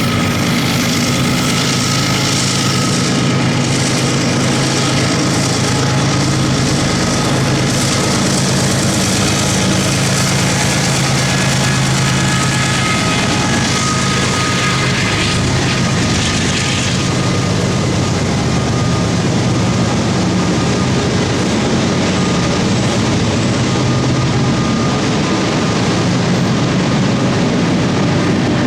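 BNSF freight sand train passing close by: a loud, steady diesel locomotive engine drone over the rumble of rolling freight cars.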